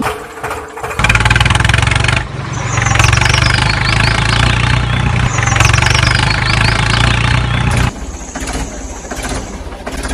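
Tractor engine starting about a second in and running steadily, then dropping to a quieter level near the end.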